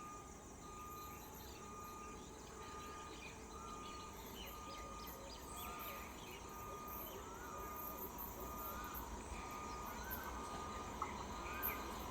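Faint outdoor ambience: small birds chirping at intervals over a steady hiss, with a thin high tone sounding on and off.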